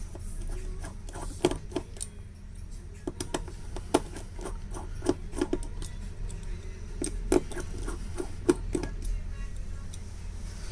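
Irregular small metallic clicks and taps of a manual precision screwdriver working the tiny screws out of a smartphone's frame.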